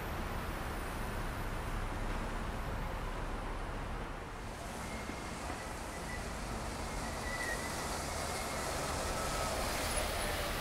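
Traffic on a wet city street: a steady hiss of tyres and rain, with a faint high squeal held for a few seconds in the middle and a faint falling tone near the end.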